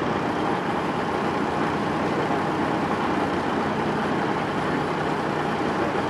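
Heavy-duty tow truck's diesel engine running steadily.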